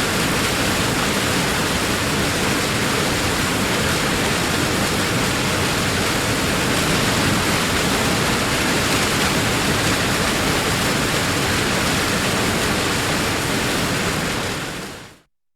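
Heavy waterfall: a steady, dense rush of falling water that fades out in the last second or so.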